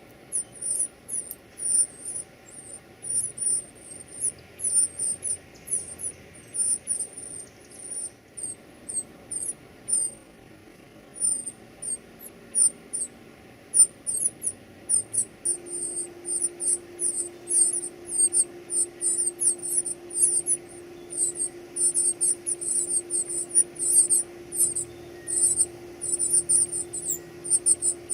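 Baby birds' high-pitched begging chirps, short rapid peeps that come thicker and faster in the second half. A faint steady hum joins about halfway through.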